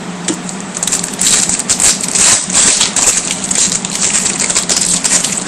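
Crinkling and crackling of foil trading-card pack wrappers being handled and torn open, an irregular run of many small crackles from about a second in until near the end.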